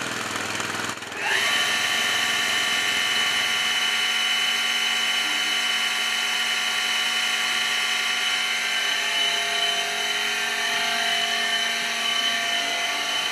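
Pump motor of a home water-pumping system running: a rougher engine-like noise for about the first second, then a sudden change to a steady, high-pitched mechanical whine over a hiss of running water.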